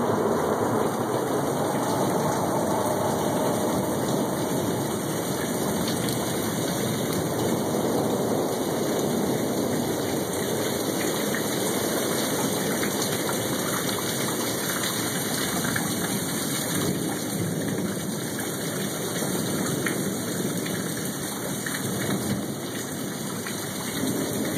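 Heavy rain falling steadily in a thunderstorm, with a thunder rumble dying away in the first few seconds.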